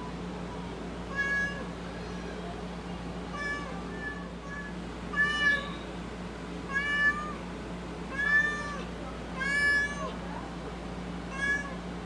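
A pale, point-coloured house cat meowing repeatedly, about seven short meows a second or two apart, over a steady low hum.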